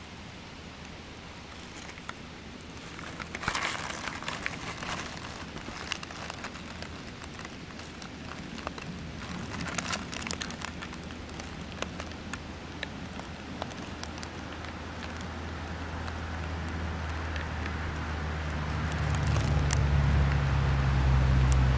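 Dry fallen leaves and twigs rustling and crackling in short spells, with clusters of sharp crackles a few seconds in and again about ten seconds in. A low, steady hum builds over the second half and is loudest near the end.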